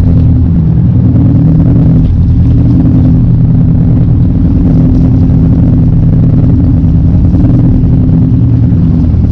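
Boat's engine running steadily with a low, even hum.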